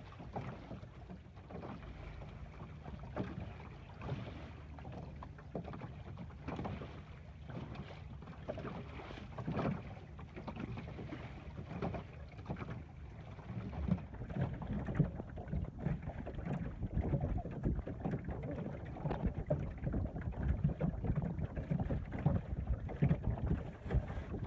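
Wind rumbling over the microphone and water washing along the hull of a small sailboat under way. The wind rumble grows heavier and gustier about halfway through.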